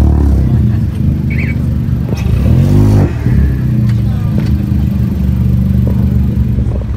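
An engine running nearby with a steady low rumble, revving up once between about two and three seconds in.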